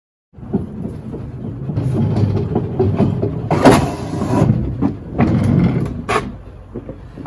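A push lawn mower's wheels rolling across new wooden deck boards: a loud rumbling clatter, with a few sharp knocks as the wheels cross the board edges.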